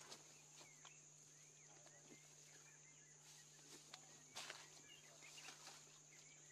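Very faint outdoor bush ambience: a steady high insect drone with a few short bird chirps and scattered light clicks.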